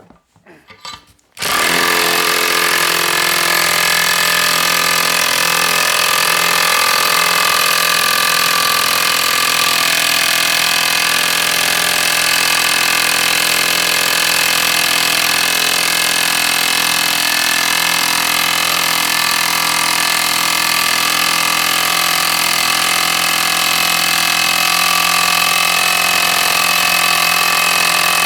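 1/2-inch impact wrench hammering continuously on a Duralast socket through a 3/8-inch adapter, held on a nut that will not give. It starts suddenly about a second and a half in and then runs loud and steady without a break.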